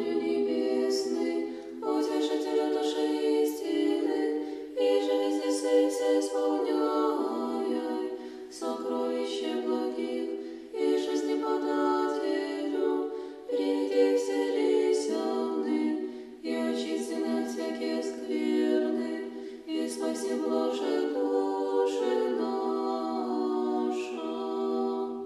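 An a cappella choir of high voices singing Orthodox church chant in harmony, in phrases a few seconds long.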